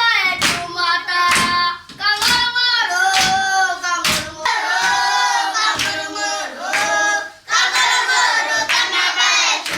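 A group of schoolchildren singing a welcome song together, with hand clapping that comes through as sharp, irregular claps over the singing.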